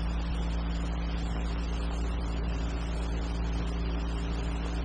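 Steady low hum with several constant tones and an even hiss, the background noise of an old film soundtrack, with no clicks or other events.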